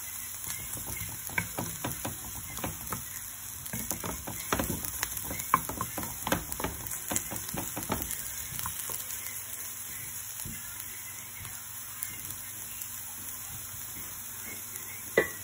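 Chopped garlic frying in a pan with a steady sizzle. A wooden spoon scrapes and taps against the pan as it stirs through the first half, then only the sizzle goes on, with a single sharp knock near the end.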